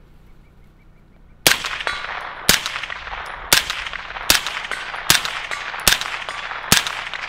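Angstadt MDP-9 roller-delayed 9mm carbine fired through a Dead Air Primal suppressor: seven suppressed shots at an even pace, starting about a second and a half in, each with a short ringing tail. The light 9mm load is supersonic, so each shot carries the crack of a small sonic boom, which keeps it from sounding well suppressed.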